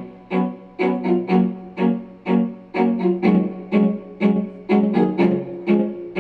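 DJ remix music between vocal lines: a repeating riff of pitched notes, each with a sharp attack, about two notes a second over a steady beat.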